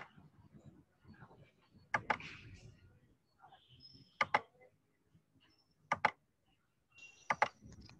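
Computer mouse clicking: single sharp clicks every couple of seconds, twice as a quick double-click.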